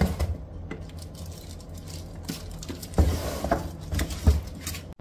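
Plastic packaging rustling and small boxes being handled, with a few light knocks about three to four seconds in.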